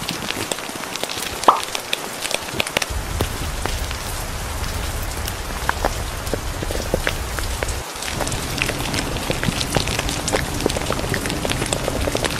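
Rain falling steadily, a dense patter of drops with scattered sharper clicks; a low rumble joins underneath about three seconds in.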